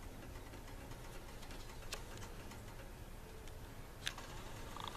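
Faint steady room hum in a kitchen, broken by two sharp clicks about two seconds apart.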